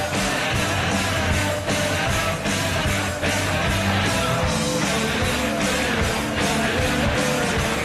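Rock music with electric guitar, drums and singing, playing at a steady level.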